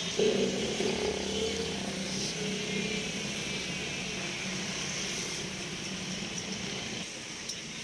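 Road traffic with a motorcycle engine running past, a steady hum that slowly fades.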